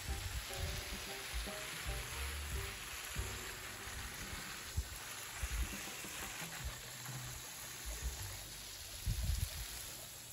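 Water spraying steadily from a garden hose spray nozzle onto plants and soil, a continuous hiss.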